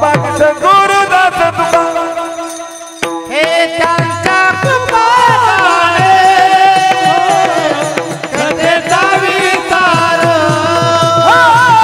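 Warkari bhajan: male voices singing a devotional chant, accompanied by brass hand cymbals (taal) and a drum keeping the beat. The music drops briefly about three seconds in, then picks up again.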